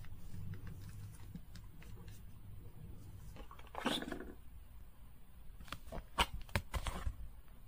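Small handling sounds of plastic toy pieces: a brief rattle about four seconds in as a toy nail-polish bottle is lifted out of its clear plastic case, then a few sharp clicks near the end.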